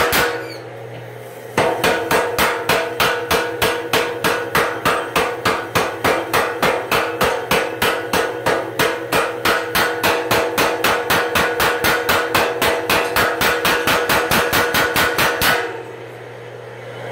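Home-built power hammer pounding a red-hot steel bar in a fast, even run of blows, about three to four a second. The blows resume after a short pause about a second in and stop shortly before the end, leaving a low steady hum.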